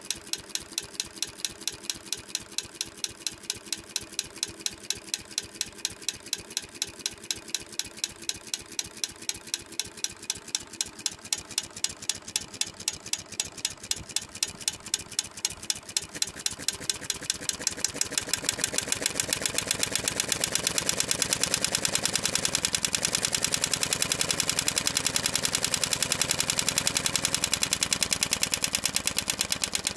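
Small engine running on a homemade piezoelectric ignition, in which a grill-ignitor crystal is struck for each spark. It makes an even train of sharp firing beats, a few a second, that picks up speed and grows louder and busier partway through.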